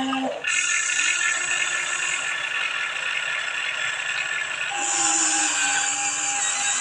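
Electric motors and gearboxes of a Huina 1593 RC excavator whining as it runs, the tone changing briefly about half a second in and again a little before five seconds in as it switches between movements.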